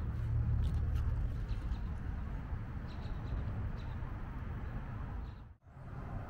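Outdoor street ambience: a steady low rumble with faint, brief bird chirps now and then. It drops away for an instant about five and a half seconds in.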